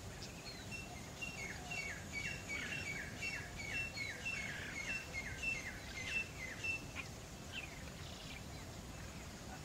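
A small bird singing a run of repeated two-part notes, each a short high note followed by a falling one, about three a second for some six seconds before stopping. Scattered chirps and a steady low outdoor rumble lie underneath.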